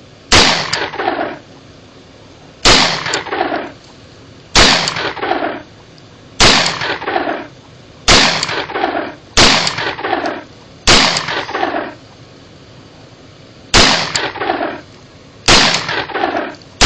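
9 mm Glock 26 Gen 4 compact pistol fired one-handed, about ten single shots at an uneven pace of one every one and a half to two and a half seconds. Each shot is followed by about a second of echo.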